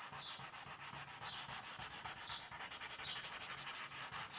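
Crayon scribbling back and forth on paper, a faint rapid rasping that swells about once a second as the strokes go.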